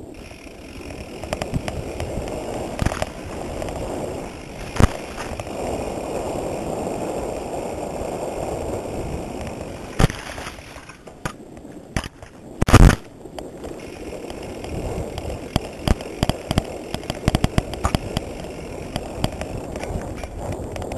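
Mountain bike riding along a dirt trail: a steady rolling rush of tyres on dirt, broken by frequent sharp clicks and knocks as the bike rattles over bumps, the loudest knock about thirteen seconds in.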